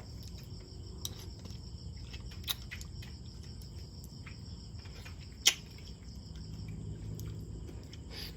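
Steady high-pitched insect chirring, typical of crickets, with a few sharp clicks; the loudest click comes about five and a half seconds in.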